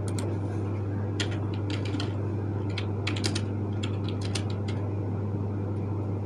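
Typing: irregular runs of light key clicks, a few per second, as a word is typed into a search, over a steady low hum.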